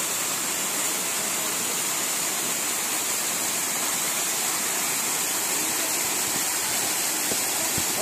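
A small waterfall's water pouring over rock ledges and between boulders into shallow pools: a steady, unbroken rush.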